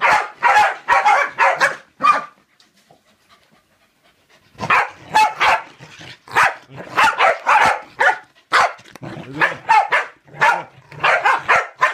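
Corgis barking excitedly in quick runs of sharp barks, with a pause of about two seconds after the first run, then more rapid barking.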